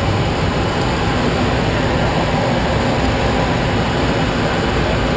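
Steady cockpit noise of a private jet in flight: an unbroken rush of airflow and engine sound, heard from inside the flight deck.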